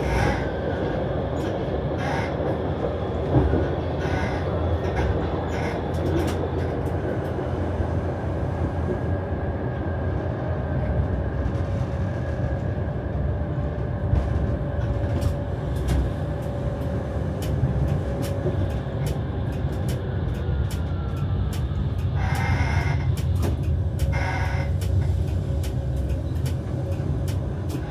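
Vario LF2R.E low-floor tram running on rails, heard from the driver's cab: a steady rumble of wheels on track with a motor tone and scattered clicks over rail joints. Two short, higher-pitched bursts come near the end.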